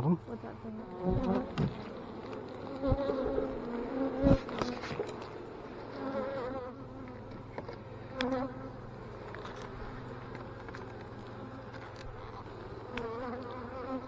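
Honey bees buzzing in a steady, wavering hum around an opened hive, with a few sharp knocks in the first few seconds.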